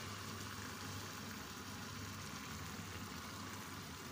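Blended tomato and chili sauce sizzling and bubbling in a hot pot of cooked chickpeas: a steady hiss, with a low steady hum underneath.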